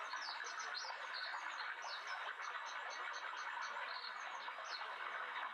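Wild birds chirping and singing in quick, high, repeated notes over a steady background hiss.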